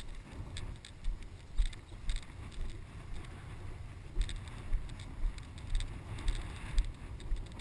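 Footsteps swishing through knee-high wet pasture grass, a brushing rustle about every half second, with wind buffeting the microphone in a low rumble.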